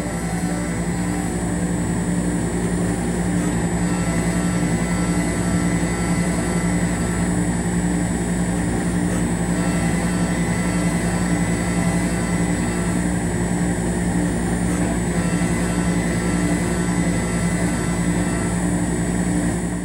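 CNC milling machine running steadily while machining an acrylic block, a constant motor drone with a fainter higher tone that comes and goes every few seconds.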